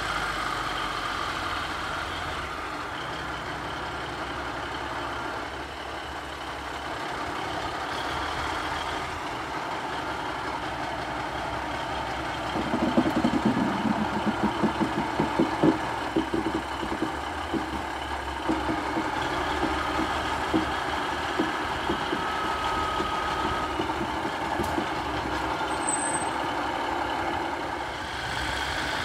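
Class 950 track recording unit's diesel engines running as it moves slowly along the track. About halfway through there is a few-second run of rapid rhythmic clattering from its wheels on the rails.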